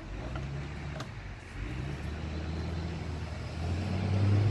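A motor vehicle's engine running with a steady low hum, getting louder near the end as it comes closer.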